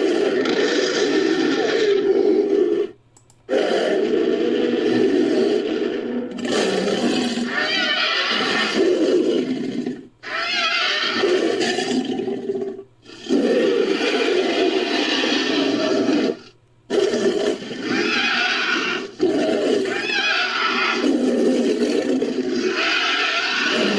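Made-up dragon roars and growls built by layering recorded dragon and dinosaur creature sound effects: about seven long calls of two to four seconds each, wavering in pitch and separated by brief silent gaps.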